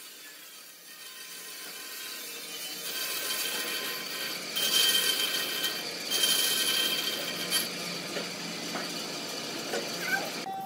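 Bandsaw running, its blade cutting through a segmented ring of glued wooden blocks, with two louder stretches of cutting carrying a high whine in the middle.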